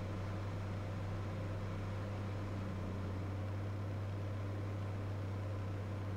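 Cirrus SR22's six-cylinder piston engine and propeller running at a steady drone inside the cockpit, with a strong low hum, during the landing approach.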